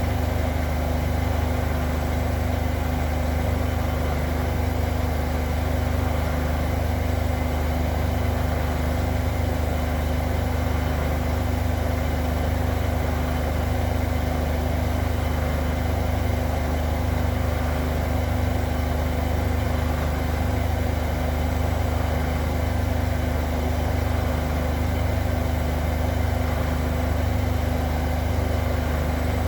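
Zanker EFX 4875 front-loading washing machine in its final spin, set to 1800 rpm: the drum spinning steadily at high speed with a constant deep hum and motor whine.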